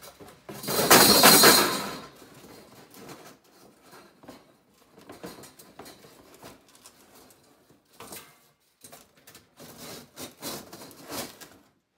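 Coiled steel bandsaw blades rattling and scraping against a cardboard box as they are packed into it, loudest for about a second near the start, then scattered light clinks and cardboard rustles, with a busier run of them near the end.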